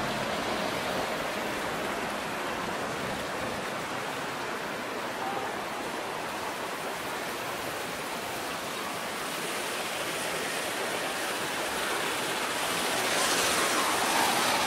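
Steady rushing hiss of outdoor city-street ambience, swelling a little near the end.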